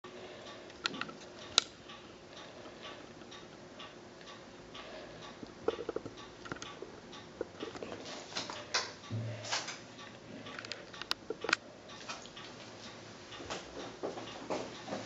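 Room tone with irregular small clicks and taps scattered throughout, and a few sharper ticks among them.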